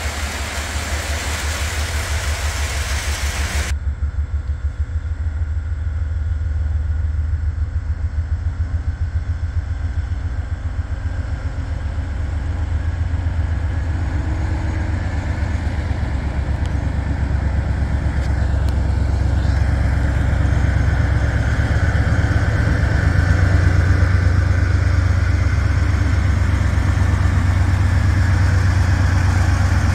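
Toy electric train running on its track: a steady low hum with a fast, even pulse, growing somewhat louder over the second half.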